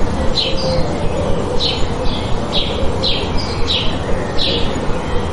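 A bird chirping over and over, short high falling chirps about two a second, over a steady outdoor background.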